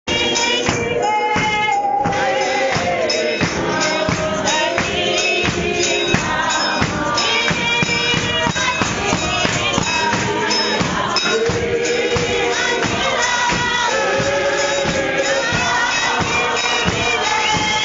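A congregation singing together in chorus over a steady beat of hand claps and tambourine-like percussion.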